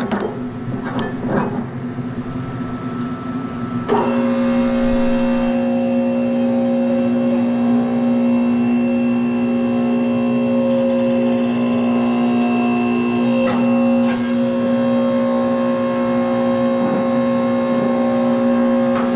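Hydraulic shop press running, its pump giving a loud steady hum from about four seconds in while the ram presses a steel spindle into its bushing, a fit that takes about 12 tons. Metal knocks from setting the parts come first, with a couple of clicks partway through.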